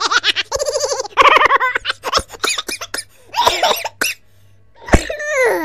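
A baby laughing in bursts of quick, high-pitched giggles, with a falling squeal near the end.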